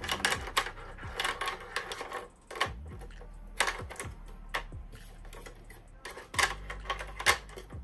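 Irregular sharp plastic clicks and taps from the hinged accessory clamp of a Cricut Explore Air 2 cutting machine being opened and a tool inside it being handled, the loudest click near the end.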